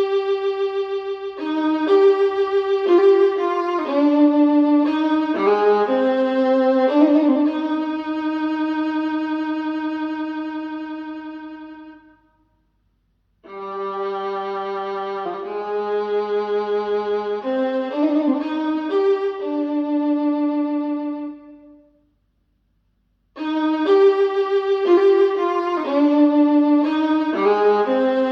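Violin music played back through a KEF iQ1 bookshelf speaker, in phrases that die away, with two brief silent breaks about twelve and twenty-two seconds in.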